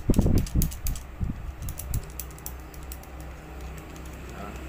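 Quick light clicks and rattles of small metal parts being handled as a nut is taken off the motor assembly, busiest in the first two seconds and sparser after, over a low steady hum.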